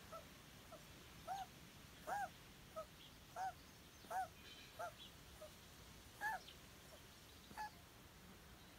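An animal calling in short, repeated notes: about ten brief calls that rise and fall in pitch, at uneven gaps.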